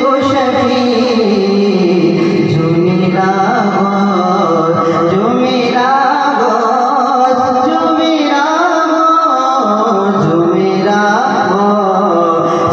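A man singing an Islamic devotional song (naat/kalam) into a microphone, in long ornamented melodic lines that glide up and down in pitch.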